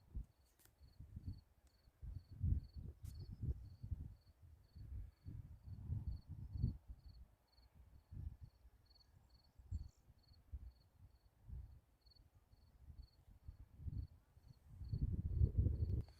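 A cricket chirping steadily at one high pitch, about three chirps a second, under irregular low rumbling thuds that are louder than the chirps.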